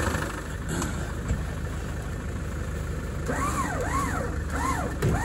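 A 4x4's engine idling with a steady low rumble. From about three seconds in, a high tone that rises and falls repeats several times over it.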